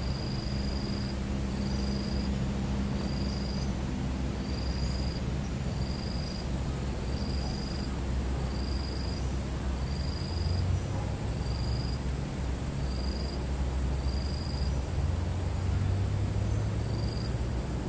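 Forest insect chorus: a short high chirp repeating evenly about once a second over a constant shrill insect drone, with a low rumble underneath.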